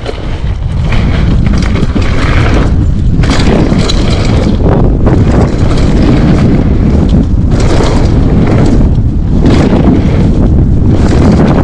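Wind buffeting the microphone of a mountain bike's action camera at riding speed, a heavy constant rumble, with repeated hissy rushes of tyre and trail noise as the bike rolls over the dirt.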